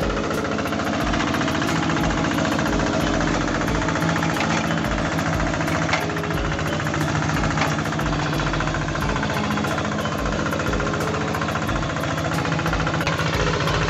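Quick G3000 Zeva two-wheel hand tractor's single-cylinder diesel engine running steadily under load as it pulls a plough through dry soil, with a regular chugging beat. A couple of sharp knocks sound about six and seven and a half seconds in.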